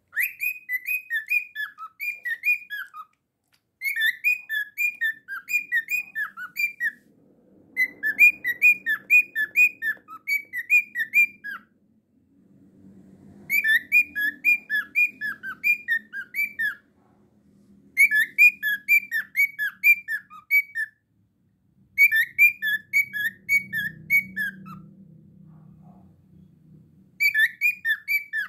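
Cockatiel whistling in quick runs of short, falling chirp-whistles, about four a second. The runs last two to three seconds each, with short pauses between them.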